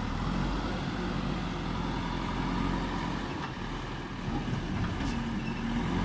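JCB backhoe loader's diesel engine running steadily under load while its front bucket tips soil into a dump truck and the machine backs away.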